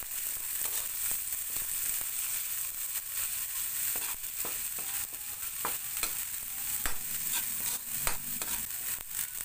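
Chopped onion and garlic sizzling in hot oil in a wok, sautéing, while a metal ladle stirs and scrapes against the pan, with several sharp clinks in the second half.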